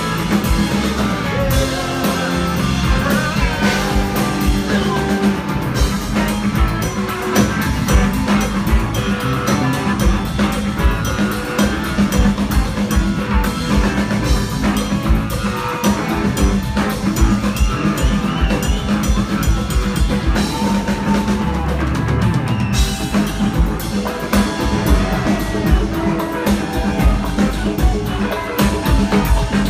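Live rock band playing: electric guitars, electric bass and a drum kit, with a steady beat.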